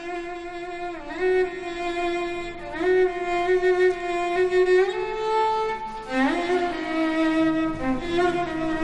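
Background score of slow music led by a bowed violin, holding long notes and sliding smoothly from one pitch to the next.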